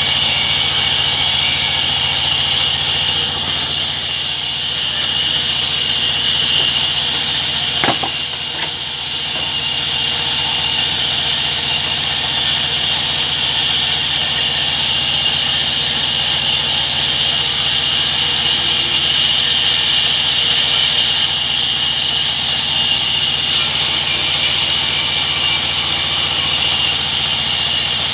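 Sawmill saw and its drive running steadily: an even, high-pitched hiss over a low machine hum, with a single knock about eight seconds in.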